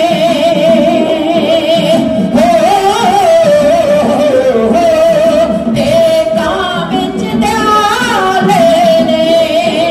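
Music: a voice singing long, wavering held notes over instrumental accompaniment.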